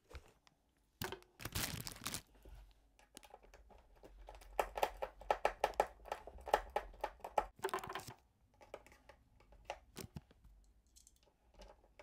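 Handling noise as a small Phillips screwdriver takes screws out of a plastic machine case: a rubbing, crinkling burst, then a quick run of clicks about five a second, then a few scattered clicks.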